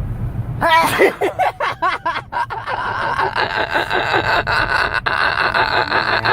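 A sudden loud vocal outburst, then a long run of high-pitched giggling laughter in quick pulses.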